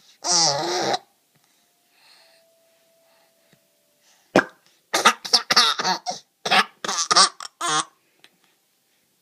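Laughter with hiccups: one long pitched squeal near the start, a sharp single hiccup about four seconds in, then a quick run of about a dozen short breathy laughs lasting about three seconds.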